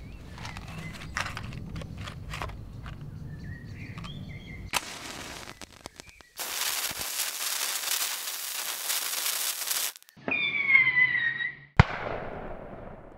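A match struck and burning, followed by a loud steady hiss for about three and a half seconds, a falling whistle-like tone, and a single sharp bang near the end.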